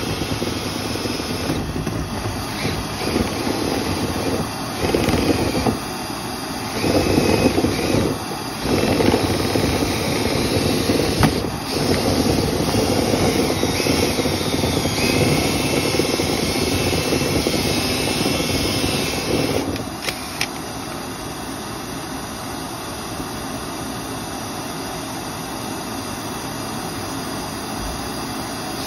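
Motor-driven dryer vent cleaning equipment running with a steady rush of air, louder and uneven through the first two-thirds with a sharp click partway, then settling to a lower, even level.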